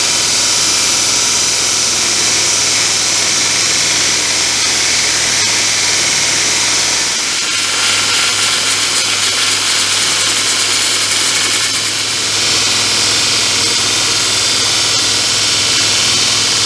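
Electric shop machine running steadily, spinning a bandsaw wheel as its polyurethane tire is set up for crowning, with a loud hiss over a low hum.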